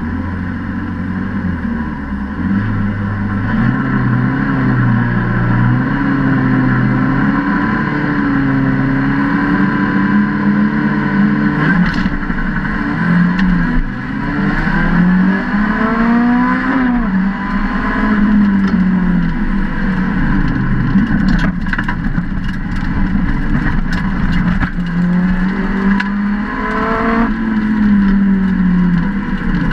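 Lotus Exige rallycross car's engine heard from inside the car. For about the first twelve seconds it is held at revs with small blips, then it revs up and down repeatedly through the gears. A few sharp knocks come through the middle.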